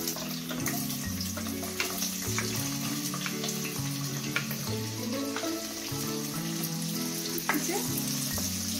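Sliced onions sizzling in hot oil in a kadhai, a steady hiss with a few light clicks of a spatula stirring. Soft background music plays underneath.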